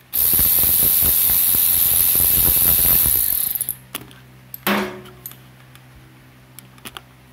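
ACDelco extended-length 3/8-inch drive cordless ratchet running on a bolt for about three and a half seconds, a high motor whine over rapid clicking, then stopping. A single knock follows about a second later.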